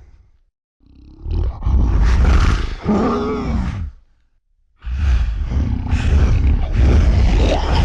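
Tyrannosaurus rex roar sound effects: two loud, deep roars separated by a brief pause, the first ending in a higher wavering cry.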